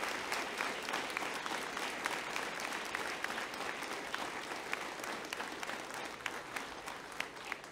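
Audience applauding: many people clapping at once, the applause slowly dying down toward the end.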